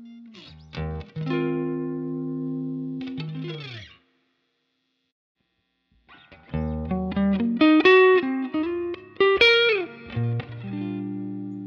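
Fender Stratocaster electric guitar played through a Universal Audio OX box's amp and speaker-cabinet simulation. A chord rings for about two seconds through a simulated 1x12 Tweed cabinet and stops abruptly. After two seconds of silence the guitar returns through a simulated 2x12 cabinet with a quick run of single notes, then a held chord.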